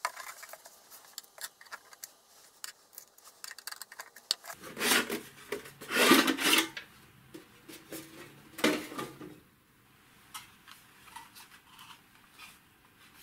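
Screwdriver working the screws on a sheet-metal instrument case, a run of small clicks. About five and six seconds in, loud metal scraping as the chassis slides out of its case, another scrape near nine seconds, then light handling clicks.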